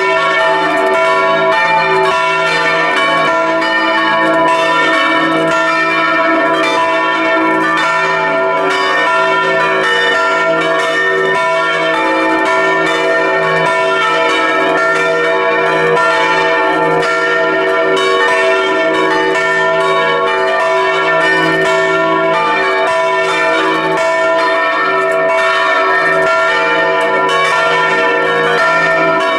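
Several bronze church bells swinging and ringing together in a continuous peal, heard close up inside the bell chamber. Many clapper strokes overlap with the bells' long ringing tones. The bells are swung by motor-driven chain wheels.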